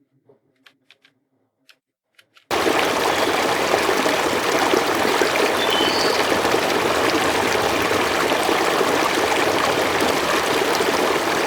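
A few faint clicks, then about two and a half seconds in a river ambience from the Opal relaxation-sound program starts abruptly: a steady, loud rush of flowing water, raised in level by normalising.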